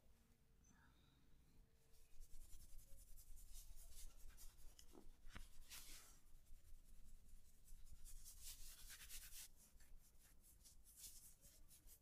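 Hands massaging a back: faint, irregular rubbing and brushing strokes over skin and clothing, with one light knock about five seconds in.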